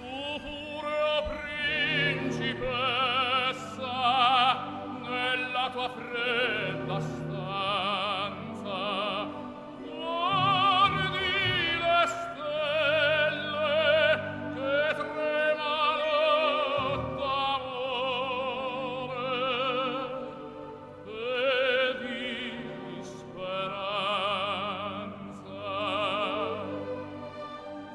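Opera music: a solo voice singing with strong vibrato over orchestral accompaniment.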